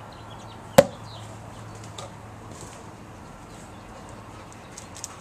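A single sharp smack about a second in: a ball bounced hard off the ground to be chased by a Weimaraner. A faint low hum runs beneath it.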